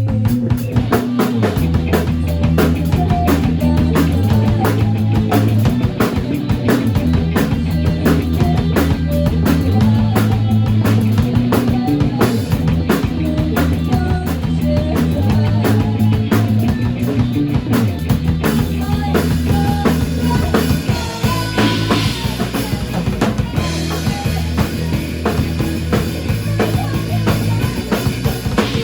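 Band music with a full drum kit keeping a steady beat over a bass line, with no vocals.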